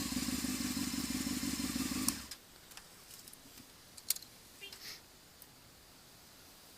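Motorcycle engine idling steadily, then cutting off suddenly about two seconds in; a few faint clicks follow.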